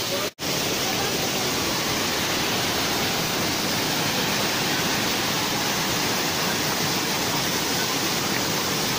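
Small waterfall pouring over rocks into a pool: a steady, even rushing of falling water. There is a momentary break in the sound about a third of a second in.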